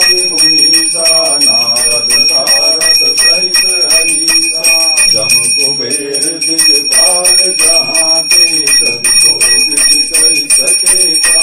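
Hand-held puja bell (ghanti) ringing continuously with rapid strokes, under a voice chanting Sanskrit mantras.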